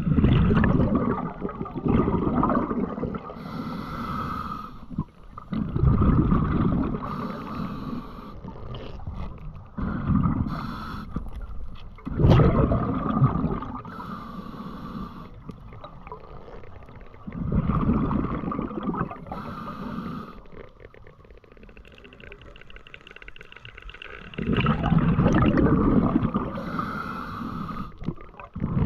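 A freediver breathing through a snorkel: long, noisy breaths every few seconds, with quieter water wash between them.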